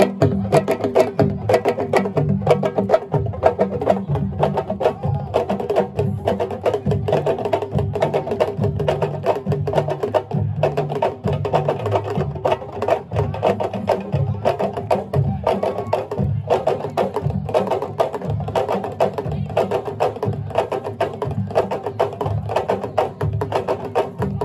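Lively traditional drumming with dense, quick, sharp strokes, and voices over it.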